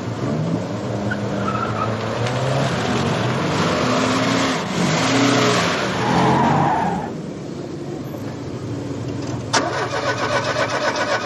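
Car engine starting and revving as the car pulls away and drives close past, its pitch rising and falling with rising tyre noise, then falling away about two thirds of the way through. Near the end a fast, even rattling sound sets in.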